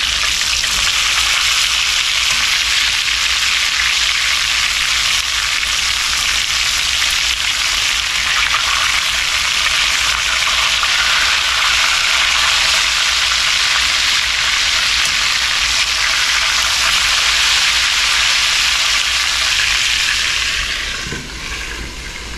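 Floured chicken pieces frying in shallow grease in a cast iron skillet: a loud, steady sizzle that drops in level about a second before the end as the lid goes back on.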